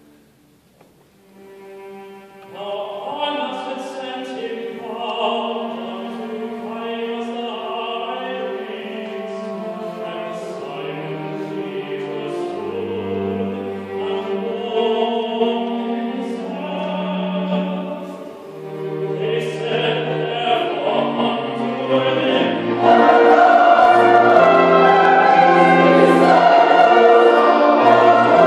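Mixed choir singing with instrumental accompaniment in a choral passion setting. The music starts softly after a brief lull and grows markedly louder near the end.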